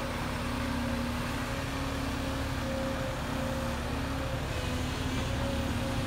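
Volvo crawler excavator's diesel engine running steadily under work, a constant low rumble with a steady droning hum.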